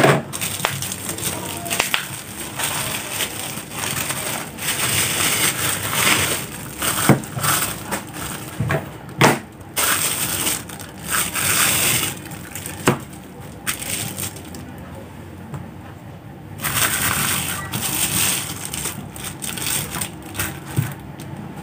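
Plastic packaging being unwrapped by hand: black bubble wrap and clear plastic film crinkling and rustling, with irregular crackles and a few sharp snaps.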